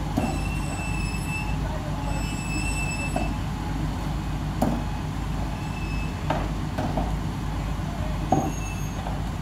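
Heavy machinery engine running with a steady low rumble, with sharp metallic knocks every second or two and two short high squeals in the first three seconds.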